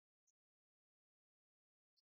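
Near silence: the sound track is essentially empty, with two tiny, barely audible clicks.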